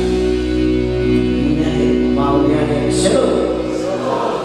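Male vocal trio singing a Batak gospel song in harmony into microphones, holding long notes over a low steady accompaniment as the song ends, dying away near the end.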